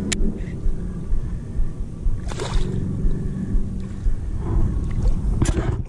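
Hooked snook splashing at the water's surface beside the boat as it fights the line, twice: about two seconds in and near the end. A steady low rumble of wind on the microphone runs underneath.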